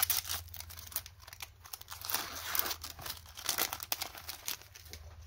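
Foil wrapper of a Pokémon TCG Sun & Moon booster pack crinkling in a run of quick, irregular crackles as the torn-open pack is handled and the cards are slid out of it.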